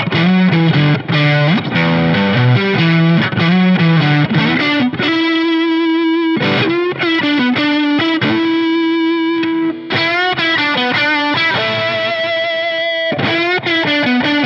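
1978 Tokai Springy Sound ST-42 electric guitar played with a distorted, driven tone through a Fender Deluxe Reverb amp: fast riffing on the low strings, then long sustained lead notes with bends and vibrato, and riffing again near the end.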